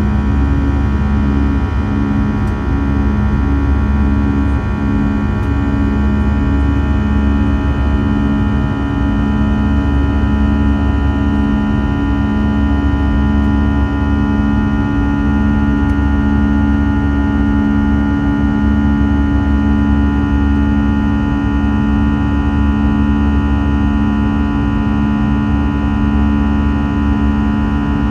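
Airbus A320's jet engines at climb power, heard inside the cabin beside the wing: a steady low drone with a strong hum over a deep rumble. The hum pulses in and out for the first several seconds, then holds steady.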